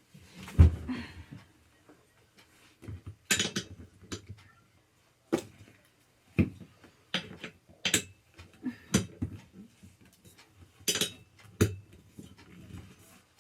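Irregular sharp knocks and clatter of hard chair parts being handled and fitted during gaming chair assembly, about a dozen separate strikes, the loudest about half a second in.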